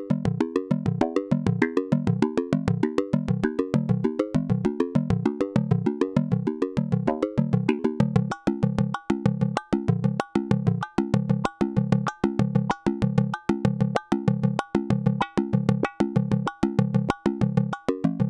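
Buchla modular synthesizer playing a fast, even rhythm of short, decaying pitched notes that move between pitches. About eight seconds in, the pattern changes to a steadier repeated low note with higher notes over it.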